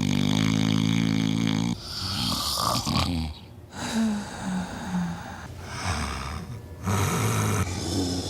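A person snoring: one long, steady snore for the first second and a half or so, then a run of rougher snores and breaths, with three short notes, each a little lower, about four to five seconds in.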